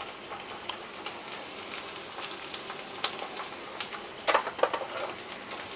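Oil sizzling and crackling in a kadhai where chopped onions and spice powders are frying on a low flame, with a few sharper pops about three seconds in and again around four and a half seconds in.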